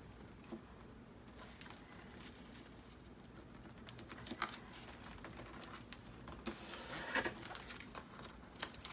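Faint rustling and small crinkles of paper and wide black tape being pressed and smoothed down by hand, with a few light taps, the clearest about four and a half and seven seconds in.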